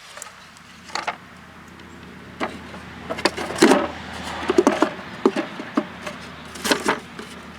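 Wooden beehive frames being slotted into a super box: a run of irregular wooden clacks and knocks, loudest in the middle and near the end, over a low steady hum.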